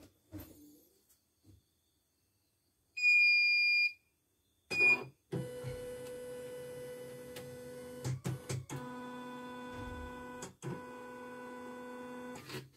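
CNY portable embroidery machine powering up: a loud electronic beep lasting about a second, then a short second beep. After that, a steady electric whine from the machine's embroidery unit, broken by a few short gaps, as the carriage arm moves.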